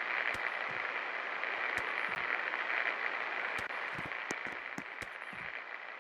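52-inch Superstar Contractor Elite ceiling fan running: a steady airy whoosh, with scattered soft low thumps.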